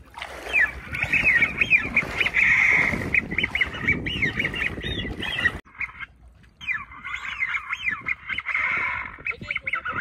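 Many overlapping duck whistles and calls in quick succession, with a rushing noise underneath. Both cut off abruptly about five and a half seconds in, and the calls start again a second later.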